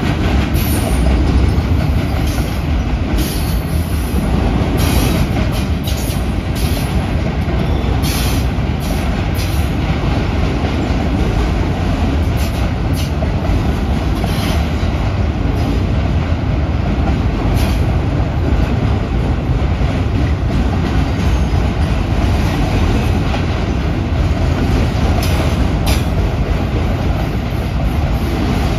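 Freight train of autorack cars rolling steadily past: a continuous rumble of steel wheels on rail, with scattered clanks and rattles from the cars.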